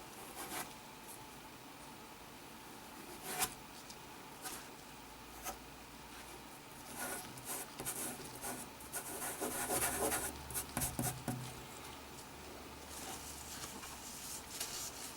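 Rubbing and scraping on a hard surface, with scattered clicks and a sharp tap about three seconds in. The rubbing is busiest around the middle.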